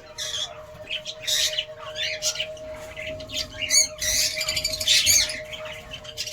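Several lovebirds chirping and squawking in quick, overlapping short calls, with a steady hum underneath.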